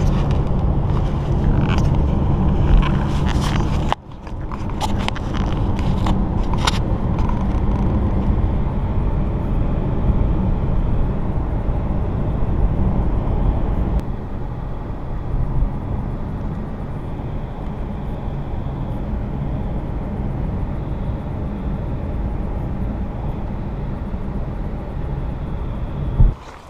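Steady road and engine noise inside a moving car's cabin, with a few sharp clicks or rattles in the first seven seconds. The sound drops and changes abruptly at two cuts, about four and fourteen seconds in.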